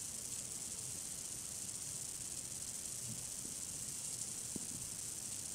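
Steady high hiss with a faint low murmur beneath it: background room tone and recording hiss, with nothing else sounding.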